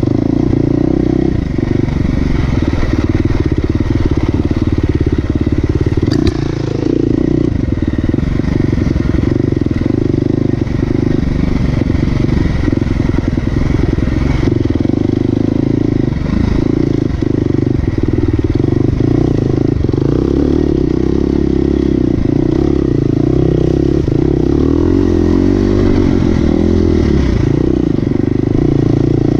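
Off-road motorcycle engine running continuously while riding, loud and fairly steady in pitch with small rises and falls and a brief dip about six seconds in.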